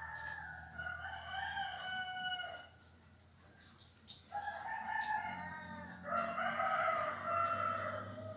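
Roosters crowing: several long, drawn-out crows one after another, with a few short clicks in the gap between them.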